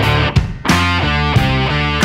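Rock music with distorted electric guitar chords, which break off briefly about half a second in and then start again.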